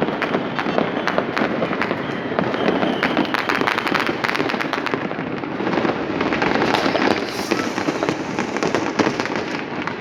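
Many fireworks and firecrackers going off at once: a continuous crackle of overlapping pops and bangs.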